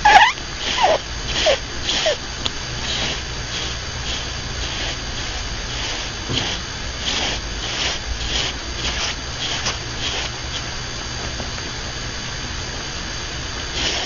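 Pet rabbit snoring: short wheezy snores about twice a second. It opens with a loud squeak falling in pitch and a few shorter falling squeaks.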